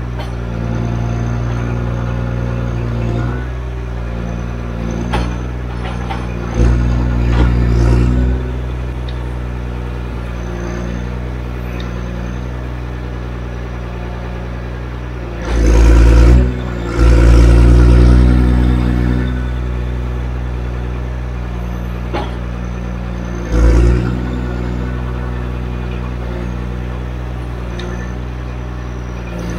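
Diesel engine of a forestry machine running steadily, with loud surges of working noise: one a little before a third of the way in, a longer, loudest one about halfway, and a short one later.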